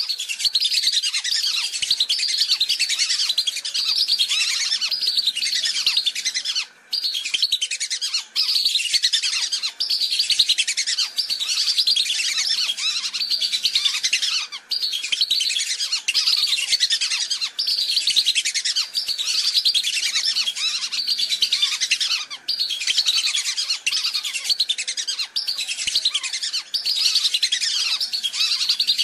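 A flock of whistling ducks (belibis) giving dense, overlapping high whistling calls with no let-up, broken by a few brief gaps. It is a lure-call recording used to draw wild whistling ducks in.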